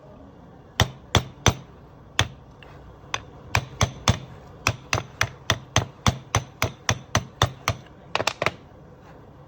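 Hammer blows on the differential during a pinion seal job: about two dozen sharp strikes, irregular at first, then a steady run of about three a second, ending with a quick triple.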